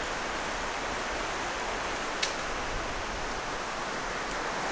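Steady rushing of a nearby river and small waterfall, with two faint clicks, one about two seconds in and one near the end.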